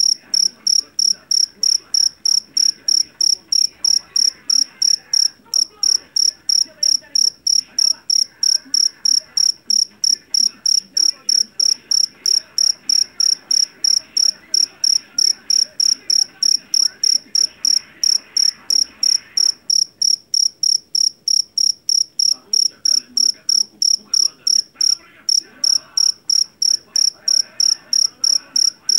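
Jangkrik jeliteng (Javanese black field cricket) chirping loudly and shrilly in an even, unbroken rhythm of about three chirps a second, one high piercing tone.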